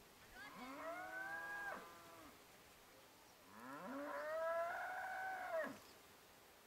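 A cow mooing twice: two long calls, each rising at the start, holding steady and dropping away at the end, the second longer and louder.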